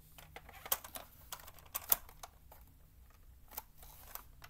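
Scattered plastic clicks and knocks from a hard-plastic Bruder Land Rover toy being handled and pulled at the roof, the sharpest click a little under two seconds in.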